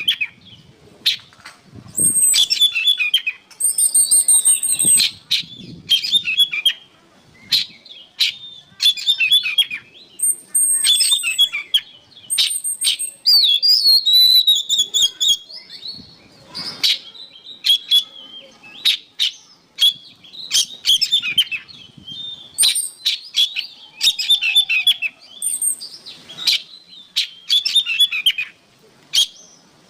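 Oriental magpie-robin (kacer) singing a loud, varied song of whistles and rapid chattering phrases, in bursts of a second or two with short pauses between them.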